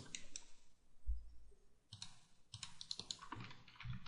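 Faint clicking of a computer mouse and keyboard in clusters of quick clicks, near the start and again in the second half, with a brief low thump about a second in.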